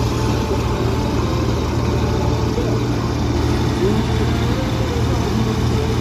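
Combine harvester running steadily with a constant low hum from its engine and machinery, with the grain unloading auger emptying the grain tank.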